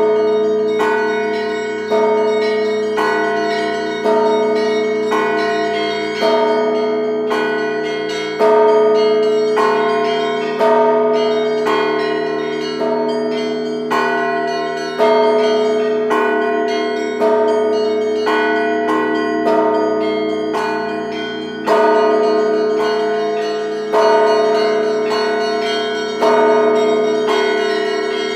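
Russian church bells rung by two ringers pulling the clapper ropes: a heavy bell struck about once a second under quicker rhythmic patterns on the smaller bells, with the big bells' hum ringing on between strokes.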